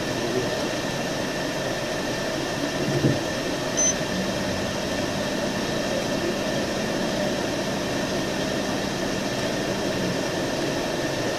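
Steady hum and hiss of a running vehicle and its ventilation fan. A low steady hum comes in at about four seconds and stops near the end, with a couple of brief knocks a little before it starts.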